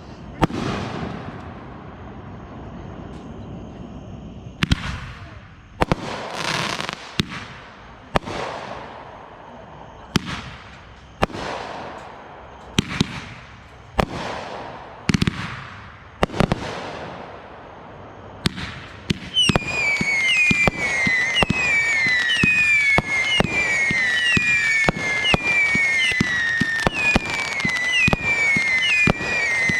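Consumer fireworks going off: a series of sharp bangs, roughly one a second, each trailing off. About two-thirds of the way through, a rapid run of whistles starts, each falling in pitch, mixed with crackling pops.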